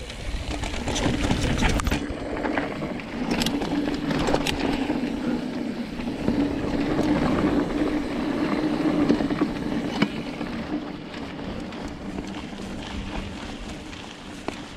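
Mountain bike rolling fast down a dirt singletrack: knobby tyres on packed dirt with a steady hum, sharp rattles and clacks from the bike over roots and bumps, and wind rumbling on the microphone. It is louder for the first ten seconds and eases off near the end.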